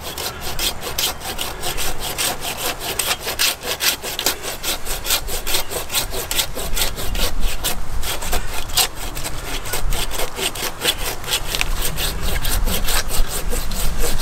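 Oregon 330 mm curved Japanese steel pruning hand saw cutting through a thick tree branch in fast, even back-and-forth strokes.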